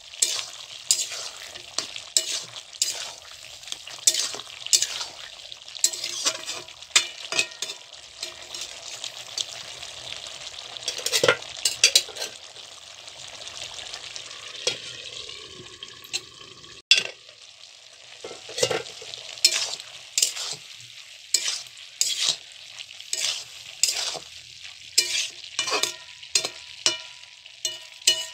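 A metal spatula stirring jackfruit curry in a metal kadai: frequent sharp clinks and scrapes against the pan over the steady sizzle of the simmering, watery masala. The stirring lets up briefly about halfway through.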